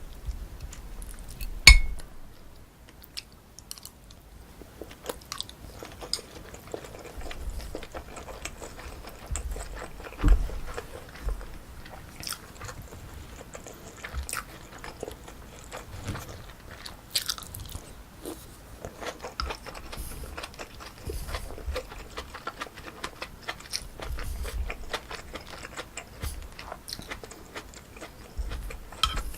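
Close-up chewing and biting of pork kimchi stew with rice and fried egg: wet, crunchy mouth sounds with many small crackles and clicks, and a sharp loud click about two seconds in and again about ten seconds in.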